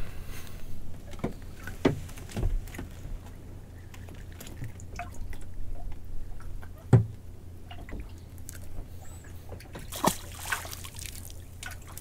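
Water lapping and sloshing against the hull of a small drifting boat, with several sharp knocks scattered through it.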